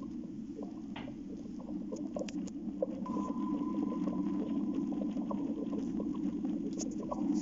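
Aquarium water and filter running: a steady low rush with many small irregular ticks and pattering. A thin steady whine joins about three seconds in.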